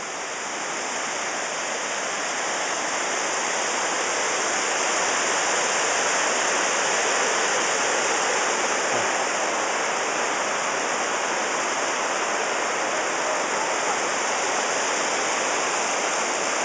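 Rushing water of a small mountain waterfall and creek: a steady, even rush that grows a little louder over the first few seconds, then holds.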